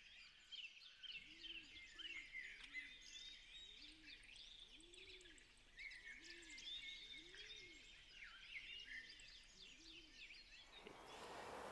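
Faint birdsong: many short chirps and twitters, with a series of low rising-and-falling notes repeated roughly once a second through the middle.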